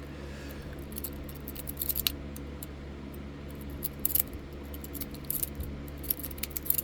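A dimple pick being raked in the keyway of a Maxxhaul dimple hitch lock under light tension: irregular clusters of light metallic scraping and clicking against the pins, over a steady low hum.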